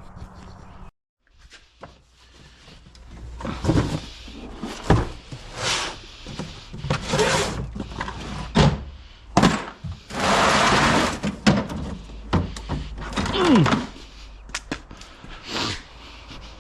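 A run of thunks, knocks and scraping as things are moved about, with a short creak sliding down in pitch near the end.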